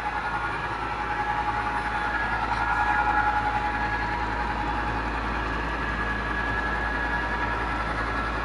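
Long model train of eight diesel locomotives pulling about thirty coal cars, running steadily along the track: an even rolling noise with a steady motor hum.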